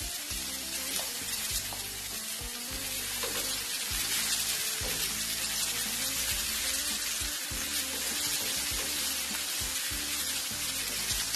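Sliced garlic, onion, carrot and chili sizzling in a little oil in a nonstick frying pan, with the spatula scraping and knocking against the pan as the vegetables are stirred. Background music plays underneath.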